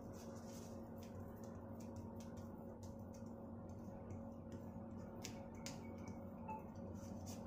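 Metal fork tines pressing and tapping raw-banana tapioca dough flat on a banana leaf, making faint, irregular light ticks, over a faint steady hum.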